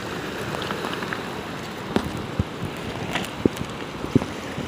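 Small waves lapping and washing over a pebble shore: a steady hiss of water, with a few short sharp clicks.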